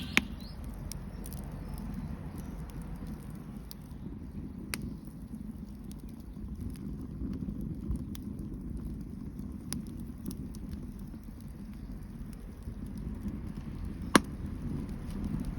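Bonfire burning: a steady low rush of flames with scattered crackles and sharp pops, the loudest pop near the end.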